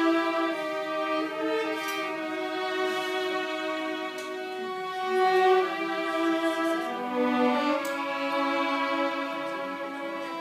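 Second violins and violas of a string orchestra playing together without the other sections, bowing held notes that change pitch every second or so.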